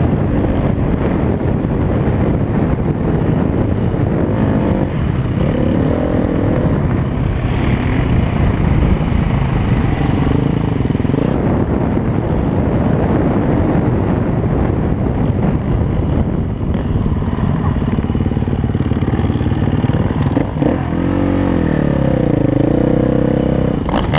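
Dirt bike engine revving up and down while riding over sand. Near the end the revs drop and then climb again.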